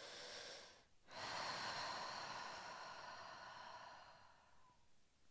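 A woman breathing audibly while she moves: a soft breath, then about a second in a longer, louder breath that fades out over a few seconds.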